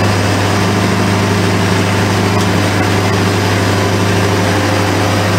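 A steady low machine hum that does not change in pitch or loudness.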